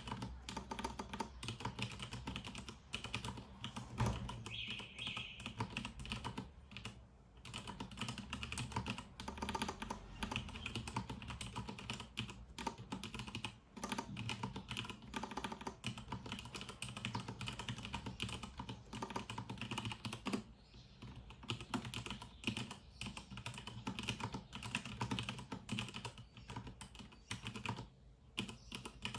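Filco Minila Air mechanical keyboard with Cherry MX Brown switches being typed on in a fast, continuous run of keystroke clacks, with brief pauses about two-thirds of the way through and near the end.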